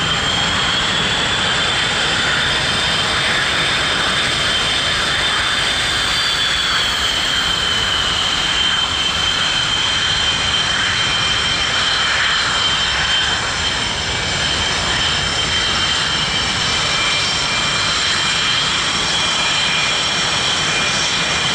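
Jet engines of taxiing military aircraft, an RAAF E-7A Wedgetail and then an F/A-18 Hornet, running at low power: a steady high-pitched whine that sinks a little in pitch several seconds in, over a constant low rumble.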